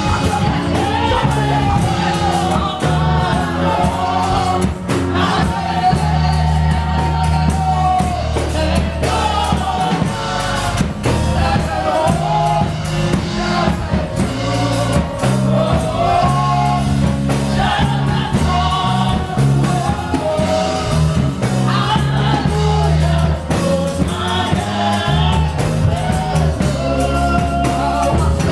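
Gospel music with a choir singing over bass and a steady beat.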